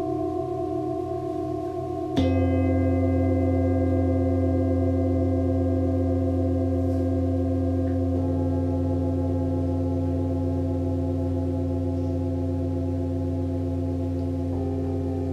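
Set of singing bowls tuned to the seven chakras ringing in layered, sustained tones with a slow wavering pulse. A bowl is struck about two seconds in, the loudest moment, and further bowls enter softly around eight seconds and again near the end.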